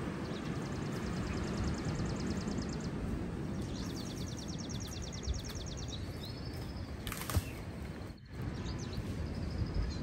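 Wind rumbling on the microphone while a small bird gives two rapid high-pitched trills, each about two to three seconds long at about ten notes a second. A brief click comes about seven seconds in.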